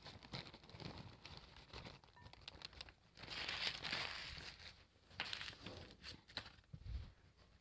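Paper towels and wrapping crinkling and rustling in the hands as chopped vegetables are tipped out of them into a bowl, with scattered light taps. The crinkling is loudest for about a second, a little past three seconds in.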